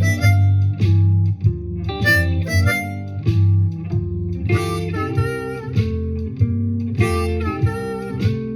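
Diatonic harmonica in C, played in second position, plays short blues licks that land on chord tones, with bent draw notes, over a shuffle backing track in G with guitar and bass. Two longer harmonica phrases come about halfway through and near the end.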